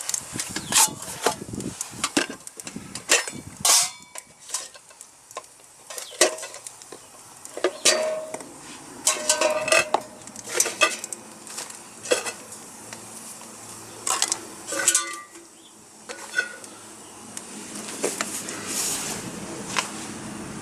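Metal pots and camp gear being handled: a string of irregular sharp clinks and knocks, some ringing briefly.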